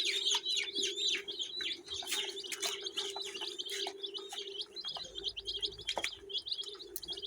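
A group of young chicks peeping constantly, many quick high chirps falling in pitch and overlapping, over a steady low hum.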